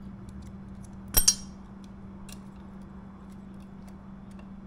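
Metal calipers clinking against a motorcycle swingarm's chain adjuster: a sharp double clink about a second in, then a few faint light ticks, while chain slack is being measured.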